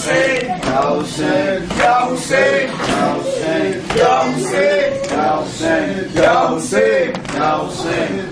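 A man's voice chanting in a melodic, sung recitation, one pitched phrase after another.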